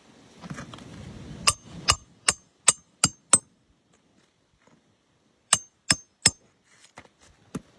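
Hammer driving a roofing nail: six quick blows with a metallic ring, a pause, then three more, followed by a few lighter taps.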